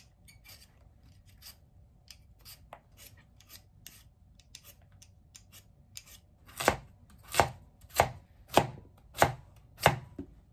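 A vegetable peeler scraping the skin off a raw potato in soft, quick strokes, then a kitchen knife slicing through the peeled potato onto a cutting board: about six loud chops a little over half a second apart in the second half.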